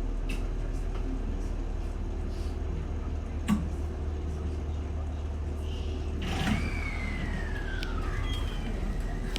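Cab of an E721-series electric train: steady low hum with a sharp click about three and a half seconds in. About six seconds in comes a thud, then an electric whine that slides down in pitch and settles into a steady high tone, typical of the train's traction equipment starting up as it pulls away.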